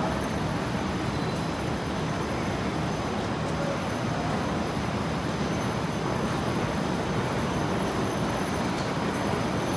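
Steady rumbling hum of an underground subway platform, with rail and train running noise and no distinct events.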